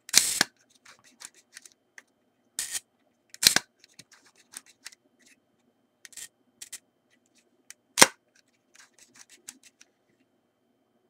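Zorki-4 rangefinder's cloth focal-plane shutter firing three times, a sharp snap just after the start, another about 3.5 s in and another about 8 s in. Lighter clicks from the winding knob and speed dial fall between. The shutter is being tried at different speeds after repair, with one curtain replaced, and is working as it should.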